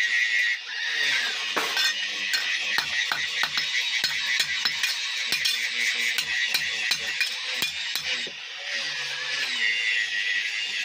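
Hammer striking metal in quick sharp taps, several a second, during hand-forging of a small iron sickle blade, over background music.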